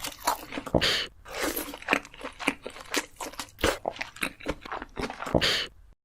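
Mukbang-style eating sounds: crunchy chewing and biting, a dense run of irregular crackles and crunches with a brief pause about a second in.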